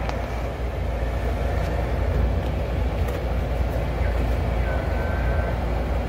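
Steady low rumble from a running gas furnace, heard while a new 16x25x1 pleated filter is slid into its slot. A faint thin squeak comes in about four seconds in and holds for about a second and a half.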